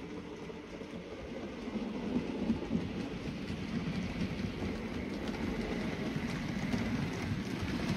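Model train, a small tank engine hauling a rake of tank wagons along the layout track: a steady rumble of motor and wheels with light clicking over the rail joints and points. It grows louder as the train approaches.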